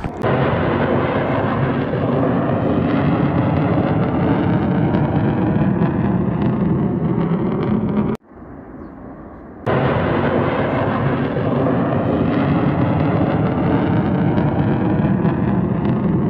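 Jet engine roar from a tailless military jet aircraft passing overhead, loud and steady. About eight seconds in the roar drops away abruptly for a second and a half, then comes back just as loud.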